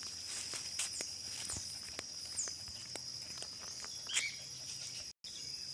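Footsteps walking down a concrete lane, about two steps a second, over a steady high-pitched insect drone, with a few short high chirps. The sound drops out for an instant near the end.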